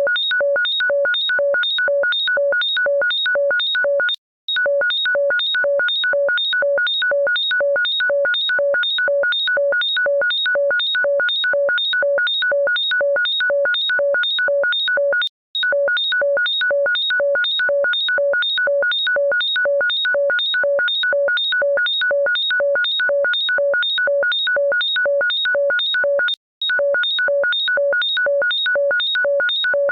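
Electronic ringtone of rapid, identical synthesized beeps, each the same few high pitches together, repeating in a loop. It stops briefly three times, about every eleven seconds, where the loop restarts.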